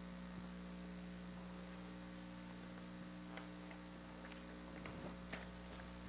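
Steady electrical hum, with a few faint clicks about halfway through.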